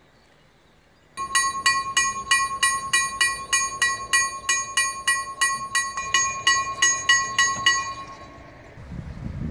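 Level crossing warning bell ringing with rapid, even strikes, about four a second, over a steady high tone. It starts suddenly about a second in and stops near the end. It sounds while the barriers are down, warning of an approaching train.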